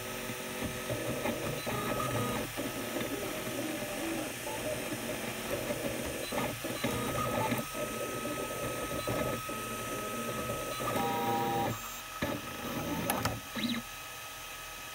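Ultimaker 3 3D printer printing: the stepper motors buzz and whir in quick, changing patterns as the print head moves, over a steady fan hum. About twelve seconds in the motor noise stops, leaving the hum and a few light clicks.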